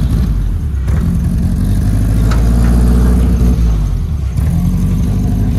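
Turbocharged Mk1 Ford Fiesta engine running on the road through its newly made full exhaust system, with short breaks in the engine note about a second in and again near four and a half seconds.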